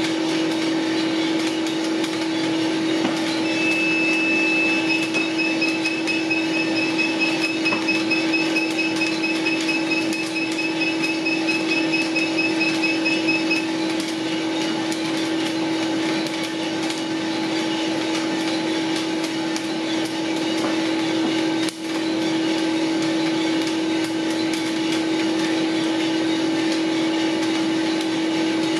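Mill City 1 kg drum coffee roaster running mid-roast: a steady motor-and-fan hum with beans ticking in the drum. An electronic beep starts a few seconds in, held briefly and then pulsing rapidly, and stops about halfway through.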